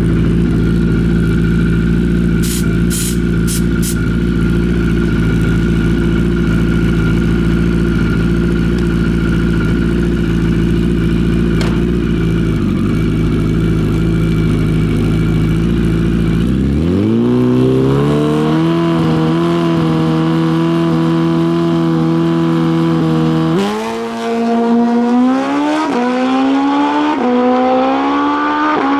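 Drag-racing motorcycle engine idling with a deep rumble, then revving up and holding a higher steady note. About three-quarters of the way in it launches hard, and the pitch climbs with short dips at each upshift as the bike runs down the strip.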